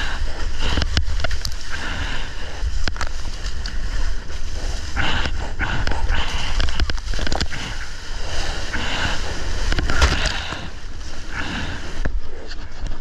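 Water splashing and sloshing around a surfboard as a surfer paddles through choppy surf, with a swell of splashing every second or two and a few sharp clicks. A heavy low rumble of water and wind sits on the action camera's microphone throughout.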